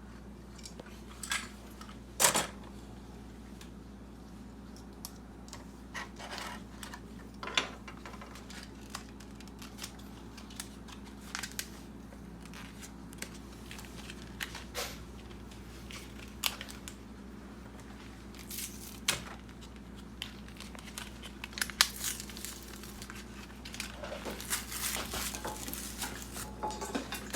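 Toy packaging being unwrapped and handled: plastic and cardboard crinkling and tearing in irregular bursts, with scattered sharp clicks, over a steady low hum.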